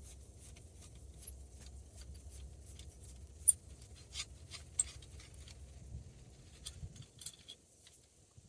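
Small sharp metallic clicks and ticks of T20 Torx screws being worked out of a steering wheel horn ring, scattered irregularly with two louder clicks, over a low steady hum that stops near the end.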